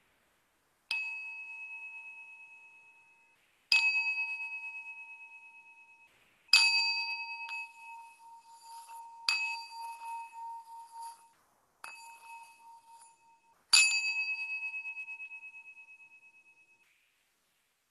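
Small singing bowl struck six times. After each strike two clear tones ring out and fade slowly with a wavering pulse. In the middle stretch the rings overlap with a faint scratchy sound.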